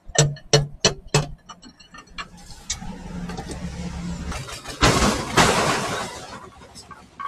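Four sharp metallic knocks, then an electric impact wrench running on a bolt: a steady whirr from about two seconds in, then a louder burst about five seconds in that fades away.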